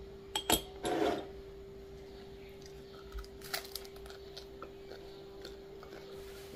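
A metal spoon scraping chocolate spread across crisp toast, with a click and a short rasp in the first second, then a crunchy bite and chewing of the toast from about three seconds in. A steady faint hum runs underneath.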